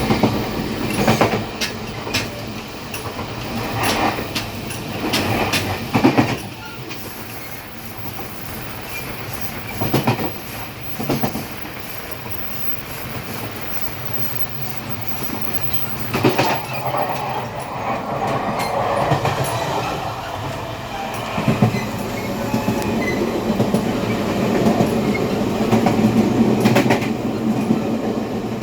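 Gangway between two carriages of a Taiwan Railways Chu-Kuang Express train in motion: a steady rumble of wheels on rail with irregular clunks and knocks from the car connection. The rumble grows louder and rougher about two-thirds of the way through.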